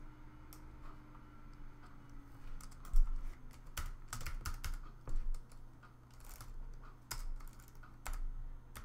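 Typing on a computer keyboard: irregular keystrokes starting a couple of seconds in, with one louder knock about three seconds in.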